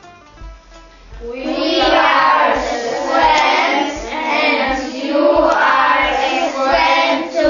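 A group of children singing a song together, coming in about a second in over a plucked-string accompaniment.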